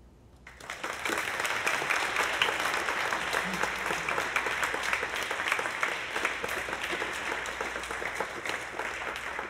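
Audience applauding, the clapping beginning about half a second in.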